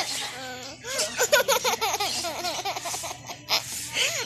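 A baby laughing in quick repeated bursts of high-pitched giggles, with a couple of short noisy sounds between laughs near the end.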